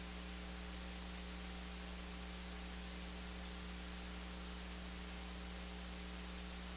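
Steady electrical mains hum with a faint hiss behind it.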